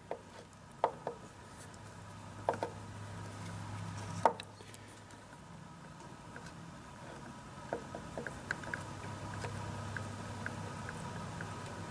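Light metallic clicks and taps as a Cummins engine oil pump's rotor is rocked by hand to check its clearance, with a louder knock about four seconds in. There is a steady low hum underneath. The knocks are slight because this pump has little play, about a quarter of the movement of the sloppy aftermarket pumps.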